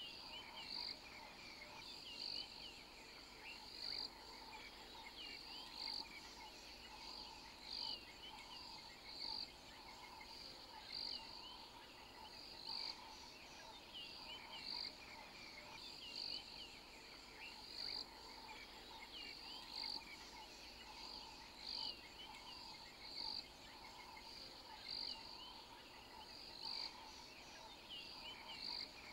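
Faint chorus of insects and frogs, with a regular high chirp about every two seconds and many shorter chirps between.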